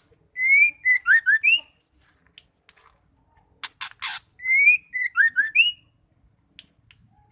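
Female white-rumped shama calling: two whistled phrases, each a rising note followed by a few quick short notes. Between the phrases come two short harsh noisy calls.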